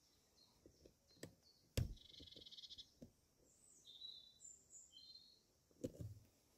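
Faint birdsong: small birds chirping high, with a buzzy trill lasting about a second. A few soft knocks cut in, the loudest about two seconds in and another near the end.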